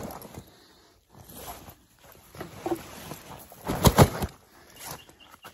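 Close handling noises: rustling and knocking from someone moving about right by the microphone, with a pair of loud thumps about four seconds in.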